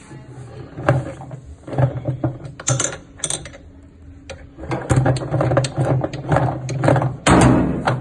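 Irregular metal clanks and rattles from a top-loading washing machine's spin basket and drive shaft being worked by hand with a drive-pulley tool, busiest in the second half and loudest near the end.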